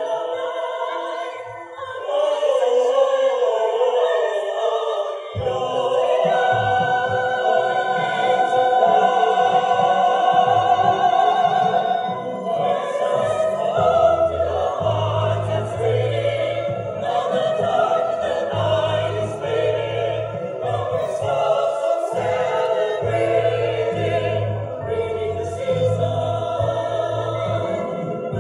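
Mixed choir of women's and men's voices singing in harmony, amplified through microphones and stage speakers; low bass notes join about five seconds in.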